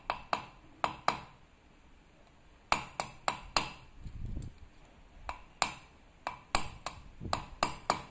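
Hammer tapping a metal ferrule on a screwdriver shaft against a steel block: sharp metal-on-metal taps, about sixteen in all, in three quick runs with short pauses, fitting the ferrule onto the shaft.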